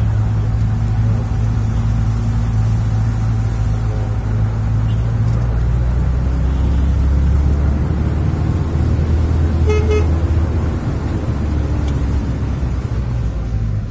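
Minibus engine and road noise heard from inside the cabin while driving, a steady low drone that swells somewhat midway. A car horn beeps briefly about ten seconds in.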